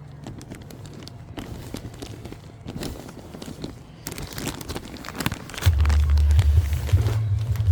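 Scattered rustles and light knocks of potting mix and pots being handled. About five and a half seconds in, a loud low rumble sets in and carries on.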